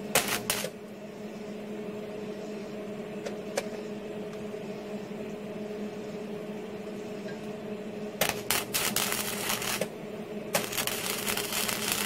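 Hobart Handler 120 MIG welder running flux-core wire, its arc crackling in short bursts: a brief one at the start, then two runs of a second or two each, about eight and about ten and a half seconds in. A steady low hum lies underneath.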